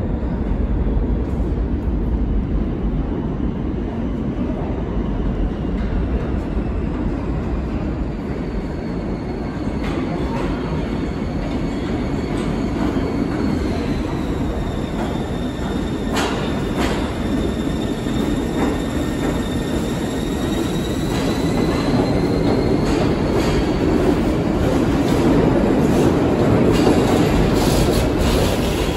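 R46 subway train approaching through the tunnel and running into the station: a steady rumble that grows louder near the end, with a thin high whine that dips in pitch and rises again, and sharp clicks of wheels over rail joints.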